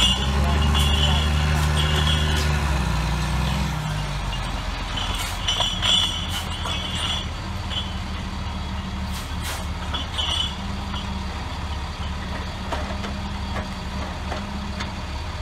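Diesel engine of a Log Champ LC550 grapple yarder running under load as it winds a log up the slope on its cable, heaviest for the first three seconds or so and then easing off. Short high-pitched squeals come and go over the engine.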